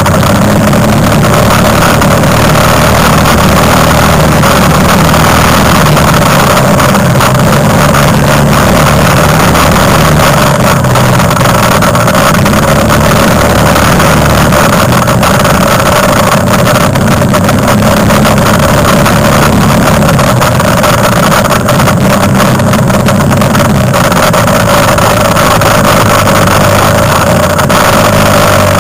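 Quad (ATV) engine running under way, heard from a camera mounted on the machine: a loud, steady drone whose pitch rises and falls a little every few seconds with the throttle, over a constant noisy hiss.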